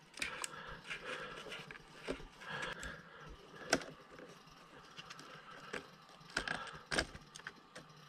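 Faint, irregular small clicks, taps and scrapes of a screwdriver and fingers working a gimbal stick assembly loose from the plastic case of a radio-control transmitter, the sharpest clicks a little before the middle and near the end.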